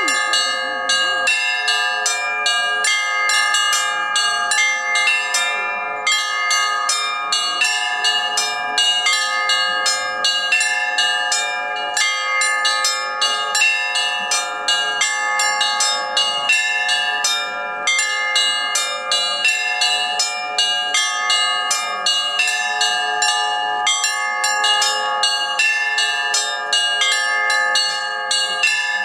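Russian church bells in a full peal: many bells struck rapidly and without pause, their ringing tones overlapping into a dense, continuous sound.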